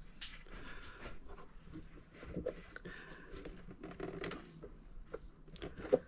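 Faint handling noise from hands working parts inside a plastic RC boat hull: light scattered clicks and rustles, with a sharper click near the end.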